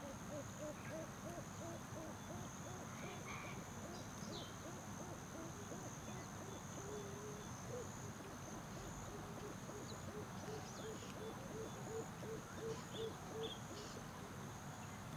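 Wildlife ambience: a steady high insect trill under long runs of quick, low hooting notes, several a second, that grow louder toward the end, with scattered short bird chirps.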